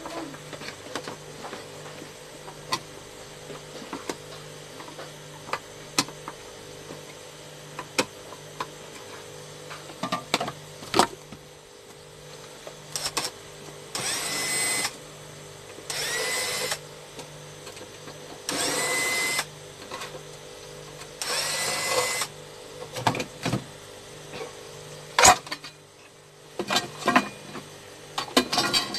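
Electric screwdriver motor whining in four bursts of about a second each, backing the screws out of the aluminium case of a 1200 W pure sine wave inverter. The whine rises as the motor spins up at the start of each burst. Scattered clicks and taps of handling come before and after.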